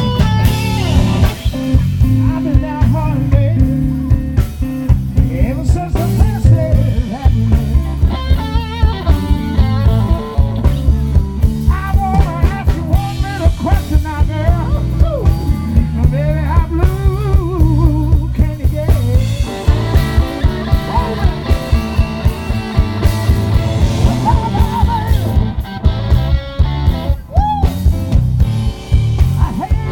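Live blues band playing an instrumental passage: an electric guitar leads with bent, wavering notes over bass and a steady drum beat.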